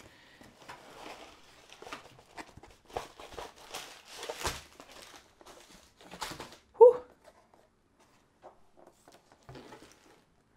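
Hands unpacking a cardboard kit box: irregular rustling and crinkling of plastic wrapping and paper with light knocks as the wrapped canvas roll and drill bags are pulled out and set down. About seven seconds in there is one brief, louder sound, followed by only a few faint clicks.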